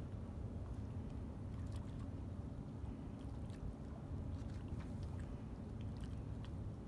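Great Lakes freighter's engines: a low, steady rumble across the harbor, with a few faint ticks scattered over it.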